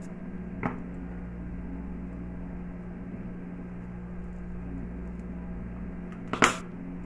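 Steady electrical hum in a small kitchen. A faint click comes about a second in, and a sharper plastic click near the end, as the flip-top cap of a spice jar is opened and handled.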